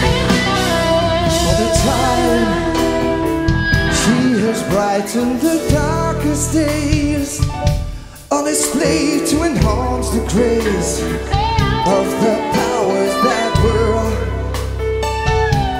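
Live rock band with a male lead vocal sung over bass guitar and drums. About eight seconds in the music drops away for a moment, then comes straight back in.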